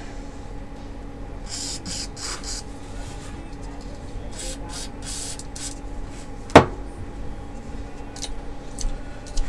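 Aerosol spray can hissing in short bursts as it is sprayed into a small projector cooling fan, in two groups of squirts. A single sharp knock about six and a half seconds in is the loudest sound, over a faint steady hum.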